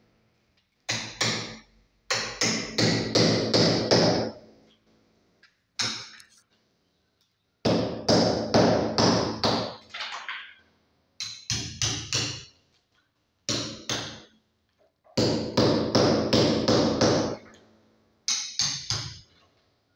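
Hammer striking a chisel into a masonry wall in repeated runs of ringing blows, about three a second, with short pauses between runs: chiselling out a recess for a flush-mount electrical box and its cable.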